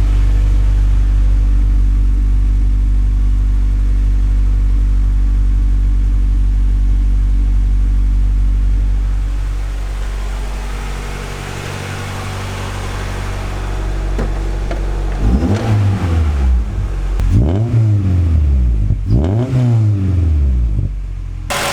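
Honda VTEC engine with an aftermarket Kakimoto Racing exhaust idling steadily, then revved three times in quick blips, each rising and falling, near the end. The engine runs smoothly, in good running condition.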